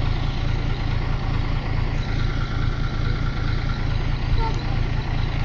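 A large engine idling steadily, a constant heavy low rumble.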